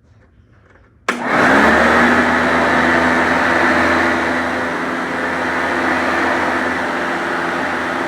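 Sanitaire SC886 vacuum cleaner switched on about a second in: its motor spins up with a rising whine, then runs steadily and loud.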